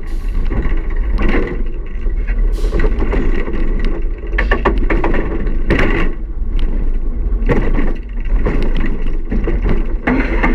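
Roller coaster ride heard from the rider's seat: a constant low rumble of wind on the microphone, with the train rattling and knocking along the track.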